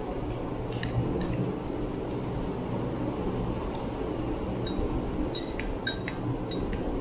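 Metal spoons clinking and scraping against small glass bowls of ice cream: several light clinks, a few in the first second and more close together in the second half. A steady fan whoosh runs underneath.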